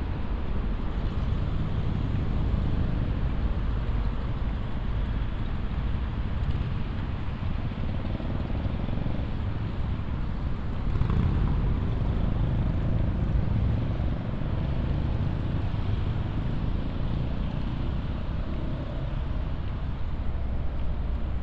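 City street traffic: a steady low rumble of passing cars, with one vehicle passing louder about eleven seconds in.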